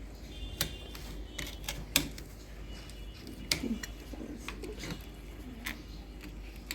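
Sparse light clicks and taps, a second or two apart, over a low steady hum.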